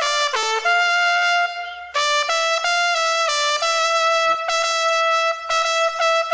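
Solo trumpet playing a slow melody: a few notes, a brief break about two seconds in, more short notes, then a long held note near the end.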